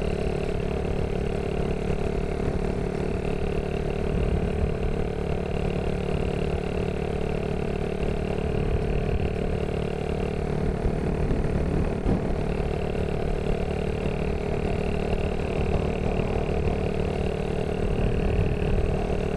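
Honda Monkey 110's single-cylinder four-stroke engine running at a steady cruising speed, its note holding even with no change in revs.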